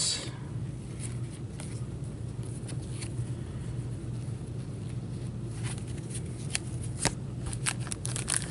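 Trading cards being handled and sorted by gloved hands: soft slides, flicks and clicks of card stock, coming more often in the last few seconds, over a steady low hum.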